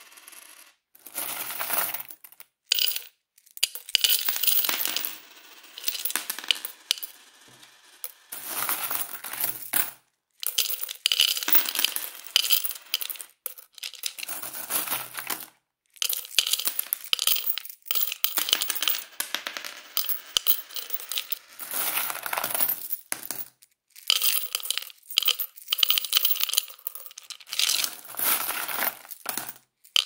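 Coins being put into a full piggy bank: metallic jingling and clinking as coins slide and drop in and rattle against the coins already inside. It comes in repeated bursts of a second or two, with short pauses between them.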